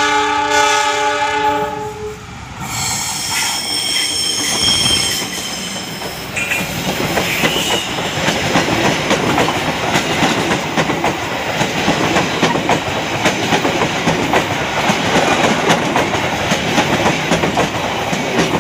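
Diesel locomotive horn sounding a chord for about two seconds, then a second, higher-pitched horn blast lasting until about five seconds in. After that, passenger coaches roll past close by with a steady wheel rumble and rapid clickety-clack of wheels over the rail joints.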